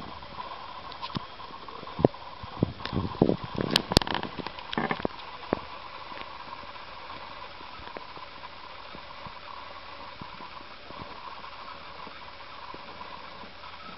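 Scattered sharp clicks and light knocks on the plastic hamster cage over a steady hiss. The clicks bunch up in the first five seconds or so, then stop.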